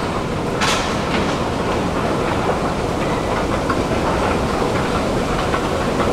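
Steady mechanical rumble with scattered rattling clicks in a Stockholm tunnelbana station, with a short hiss about a second in.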